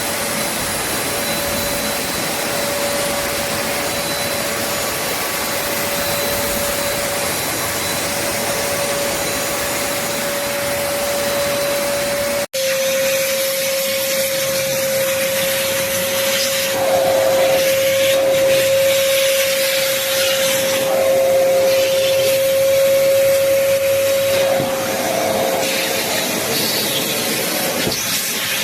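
Black+Decker BXVC30XTDE 1600 W wet/dry vacuum running with a steady motor whine and rushing suction. It cuts abruptly about halfway through, then carries on. In the second half the suction sound swells and shifts several times.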